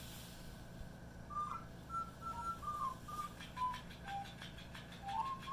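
Someone whistling a tune softly: short, clear notes stepping up and down in pitch. About halfway through, faint scattered clicks join in.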